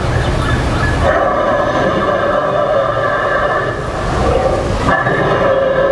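Animatronic Tyrannosaurus rex's recorded roar played through its speakers: one long roar starting about a second in, and a second roar starting near the end.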